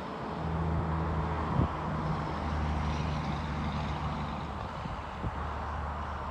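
Heavy diesel engine of a truck or yard machine running steadily at a low hum, with a single sharp knock about one and a half seconds in.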